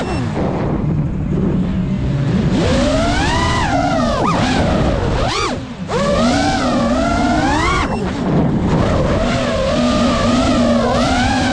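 Geprc Mark 5 FPV quadcopter's brushless motors and propellers whining, the pitch rising and falling with the throttle, with a few quick swoops down and back up near the middle.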